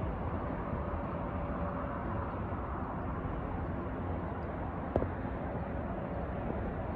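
Steady rumble of a BNSF freight train of empty wind turbine blade flatcars rolling past, with a faint thin squeal at times and a single sharp click about five seconds in.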